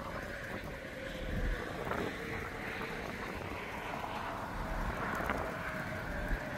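Steady wind blowing across the microphone.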